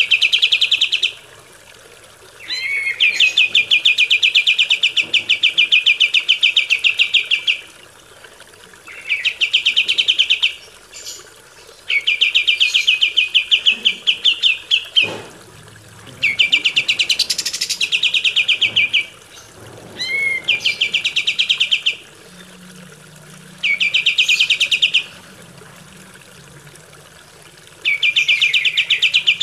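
A kapas tembak bulbul singing in repeated phrases of rapid chattering notes. Each phrase lasts one to five seconds and is followed by a short pause.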